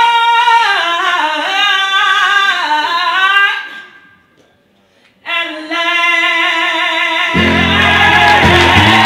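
A woman singing alone at full voice: she holds a long high note, then runs down through a falling line and breaks off about three and a half seconds in. After a two-second pause she comes back on a lower held note. About seven seconds in, a loud low-pitched rush of sound comes in under her voice.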